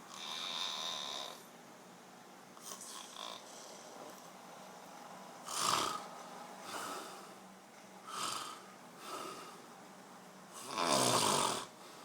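A sleeping person snoring loudly in uneven breaths, about six in all. The first has a thin high whistle in it, and the last, near the end, is the longest and loudest.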